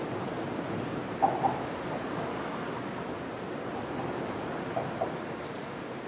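Insects chirping in short high trills, one about every second and a half, over a steady low rumble from a freight train approaching in the distance. Two brief sharp double sounds stand out, about a second in and again near five seconds.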